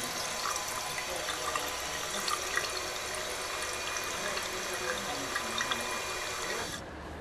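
Water running into a salon hair-washing basin: a steady hiss with small splashes, stopping shortly before the end.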